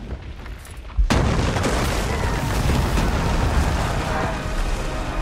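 Film sound effect of a huge explosion of dragonfire blasting through a city gate: a sudden loud blast about a second in, followed by a sustained rumble of fire and debris.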